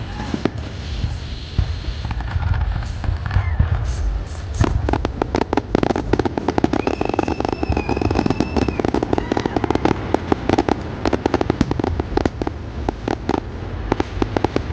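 Fireworks display: a dense, rapid run of bangs and crackling that grows thicker about four seconds in, with a steady high whistle for about two seconds around the middle.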